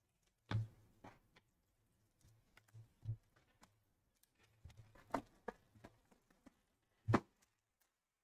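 Sports cards and card holders being handled on a desk: scattered light clicks and soft knocks, the loudest just after the start and about seven seconds in.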